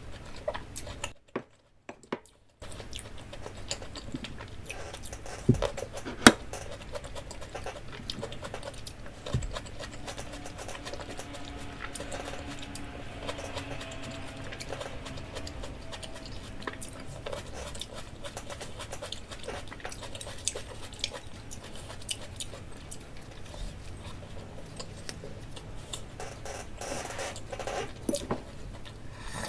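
Close-miked eating sounds: many small clicks and taps of food being handled and nibbled, over a steady low background, with a brief drop to silence about a second in.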